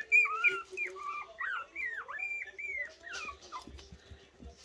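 A litter of young puppies whimpering and squeaking over each other in short, high calls, hungry at feeding time. The calls thin out about three and a half seconds in.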